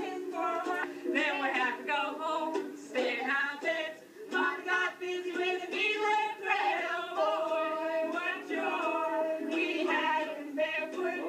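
A group of men and women singing together in a loose, casual chorus, heard through a TV speaker playing back an old home-video tape.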